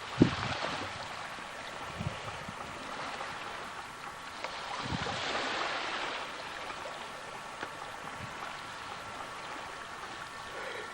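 Water rushing and wind noise aboard a moving ferry, swelling about five seconds in, with a faint steady mechanical tone underneath and a few soft knocks.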